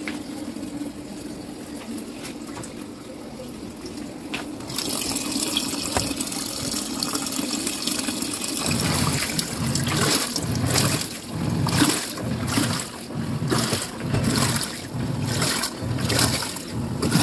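Fujidenzo top-load automatic washing machine filling: from about five seconds in, water pours steadily from the inlet into the tub. From about nine seconds the washer agitates, sloshing the water in regular surges about once a second.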